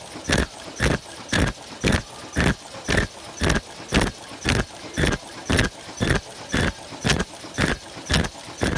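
Automatic face-mask machine running, its mechanism knocking in an even cycle about twice a second as masks with ear loops move through its stations.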